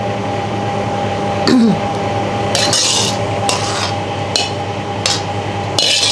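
Metal ladle scraping the inside of a stainless steel wok in repeated short strokes, about one a second, as stir-fried vegetables are served out onto a plate. A steady hum runs underneath.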